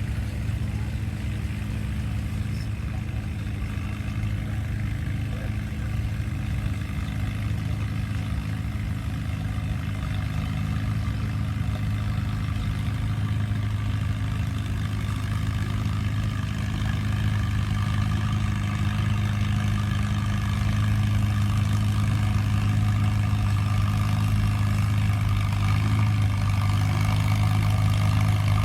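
Tractor engine running at a steady speed, a low drone that slowly grows louder.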